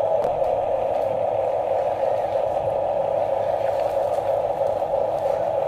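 Small electric motor and plastic gearbox of a hobby-grade RC construction toy whirring steadily, with a few faint clicks.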